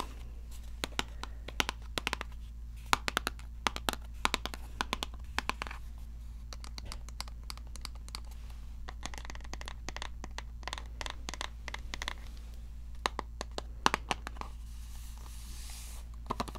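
Fingernails tapping and scratching on a small headphone box: irregular sharp taps, sometimes in quick runs, with a brief rubbing scratch near the end.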